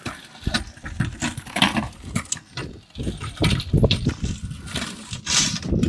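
Saw blade fitted as the rear wheel of an electric dirt bike, crunching and scraping through snow and dirt in a run of irregular knocks and crackles, with a burst of hiss near the end.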